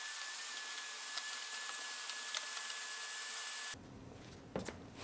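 Vacuum cleaner running steadily with a thin high whine, its hose wand sucking debris off truck-cab floor carpet with small ticks. It cuts off suddenly about three and a half seconds in, leaving quiet room sound with a couple of knocks near the end.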